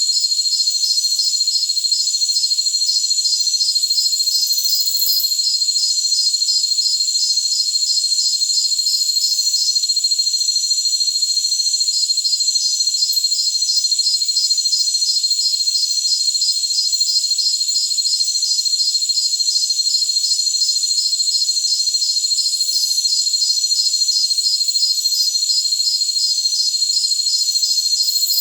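A chorus of jungle crickets trilling: one steady high trill under a rapidly pulsing chirp that stops for about two seconds a third of the way in, then resumes.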